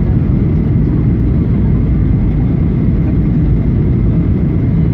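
Steady cabin noise heard inside a jet airliner in flight: a low, even rumble of the engines and rushing air, with a faint high tone running through it.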